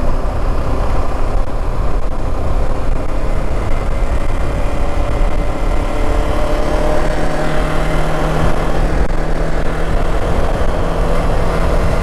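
Motorcycle cruising at steady speed: a dense rumble of wind on the microphone with the engine's steady hum, which comes through more clearly from about halfway.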